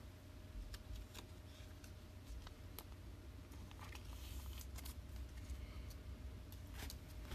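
Faint handling of a trading card: scattered light clicks and a brief rustle about four seconds in, over a steady low hum.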